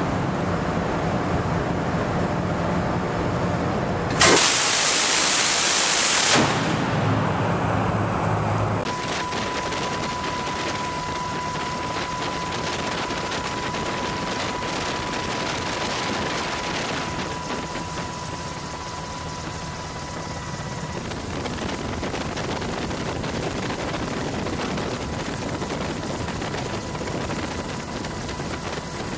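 A ship-mounted multi-barrel rotary machine gun firing one burst of about two seconds, its shots run together into a continuous loud buzz, after a low steady machinery hum. From about nine seconds in there is a steady rushing noise with a thin high steady tone.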